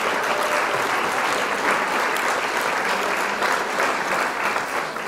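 An audience clapping steadily, many hands at once.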